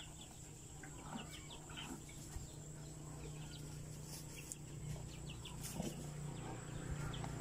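Chicks peeping faintly again and again in short high notes, with a few soft crunches from a cow chewing chopped green fodder, over a low steady hum.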